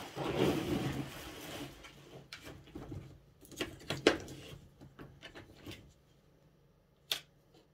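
Someone rummaging through art supplies in search of a tube of paint: a rustling shuffle for the first second or two, then scattered clicks and knocks of items being moved.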